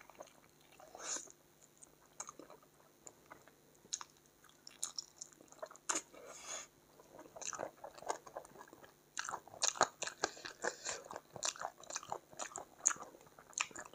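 Close-miked chewing and biting of chicken eaten by hand: a scatter of short crunches and clicks, sparse at first and coming much thicker about nine seconds in.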